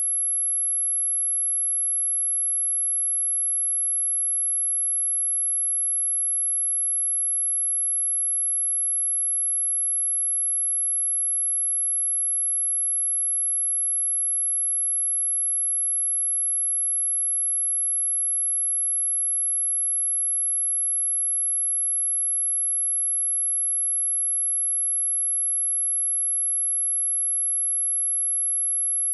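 A pure 11126 Hz sine-wave test tone, a single very high, steady whistle at an unchanging level, played as a speaker test and cleaning tone.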